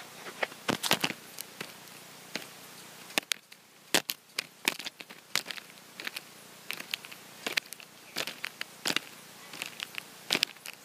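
Irregular clicks, knocks and rustles of a handheld camera being handled, fingers and grip shifting against the body near the microphone.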